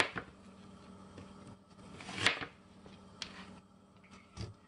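Chef's knife cutting an onion on a plastic cutting board: a few separate knocks of the blade through the onion onto the board, the loudest about two seconds in.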